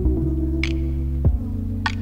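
Electronic background music: a sustained low synth drone with deep, pitch-falling thuds and a couple of short hissing hits.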